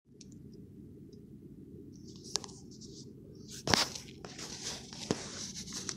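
A phone being handled and moved around inside a car: rustling and scraping, with a few sharp knocks, the loudest about three and a half seconds in, over a low steady rumble.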